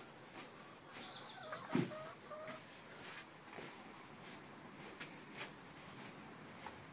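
Straw and hay rustling and crackling as whippets root through it. A little under two seconds in there is a thump, along with a few short animal calls.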